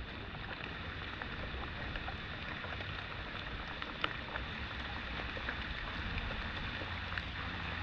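Steady rain falling on open water and a canoe, a continuous hiss dotted with faint drop ticks, with one sharper tick about four seconds in.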